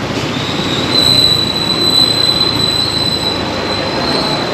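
A steady high-pitched metallic squeal that starts about a second in and holds for some three seconds, over constant road-traffic noise.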